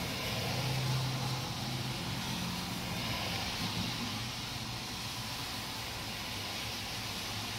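Heavy rain hissing steadily on a wet road, with cars' tyres swishing through the standing water. A low engine hum from passing traffic fades after about four seconds, leaving the rain hiss.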